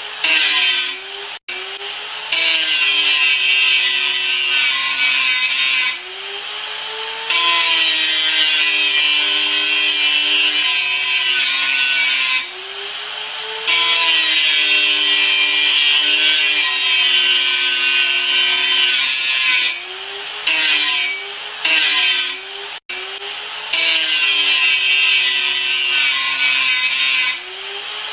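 Electric grinder working in several passes of a few seconds each, harsh grinding noise while the disc bears on the material. In the short breaks between passes the motor's whine drops and rises back up.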